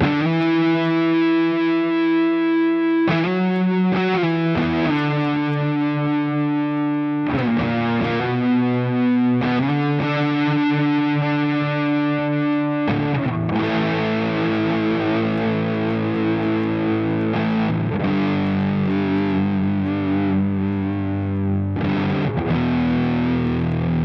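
Electric guitar played through a JOYO Hot Witch Big Muff-style fuzz pedal: long, sustained, heavily fuzzed notes. About halfway through it turns into a thicker, denser fuzzed passage with wavering held notes.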